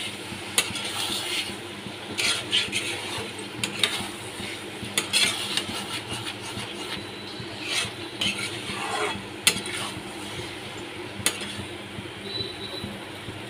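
Spatula stirring and scraping paneer cubes through thick masala in a metal kadai, with irregular knocks against the pan over a low sizzle as the paneer is sautéed.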